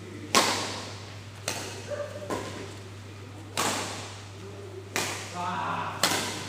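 Badminton rally: rackets striking a shuttlecock back and forth, six sharp hits about a second apart, each ringing on in the hall's echo. The last hit is a jump smash.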